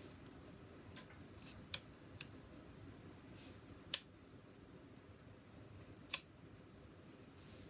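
Copal-SV leaf shutter of a Yashica-44 twin-lens reflex being worked by hand: a cluster of small mechanical clicks about a second in, then two sharp single clicks about two seconds apart as the shutter is fired.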